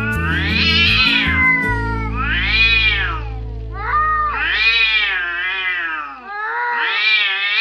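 A cat meowing: four long, drawn-out meows, each rising and then falling in pitch, over background music that fades out about halfway through.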